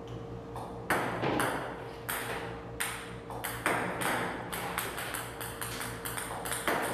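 Ping-pong balls from a table tennis robot striking and bouncing on the table, a sharp ping roughly once a second, over a steady low hum.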